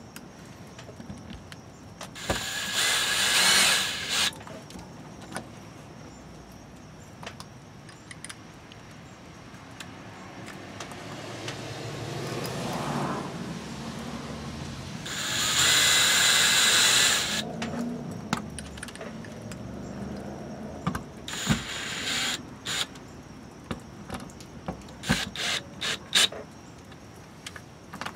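Cordless drill/driver driving screws into a new RV city water inlet flange. It runs in two bursts of about two seconds each, a few seconds in and about halfway through, with a shorter burst after that. Sharp clicks follow near the end.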